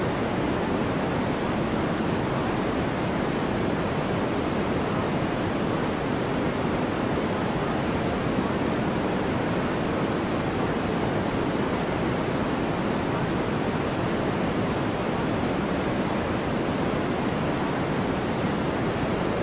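Steady, even rushing noise of the pink-noise kind, unchanging and without swells: the masking noise track of a subliminal audio.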